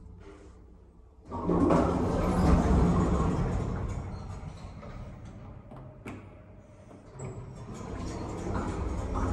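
An old lift's sliding car door opening: a sudden loud run of noise about a second in that fades over a few seconds. There is a short click about two seconds later, and the noise rises again near the end.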